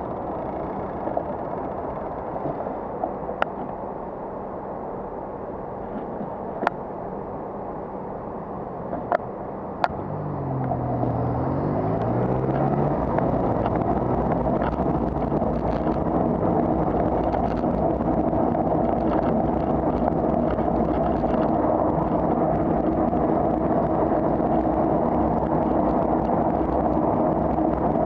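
Road traffic heard from a cyclist's camera: passing cars with a few sharp clicks in the first ten seconds. About ten seconds in, an engine note dips and climbs in pitch. After that, louder, steady road and wind noise as the bike rides on.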